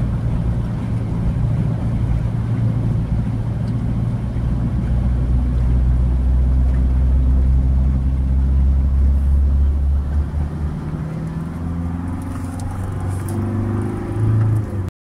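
Car driving through flood water, heard from inside the cabin: a steady low rumble of engine and tyres pushing through the water. About ten seconds in, as the road turns drier, the deep rumble eases, and the sound cuts off suddenly at the very end.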